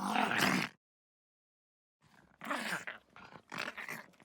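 Dog vocalizing: a pitched, wavering call cuts off under a second in, followed by about a second of dead silence, then a new recording of several short dog calls.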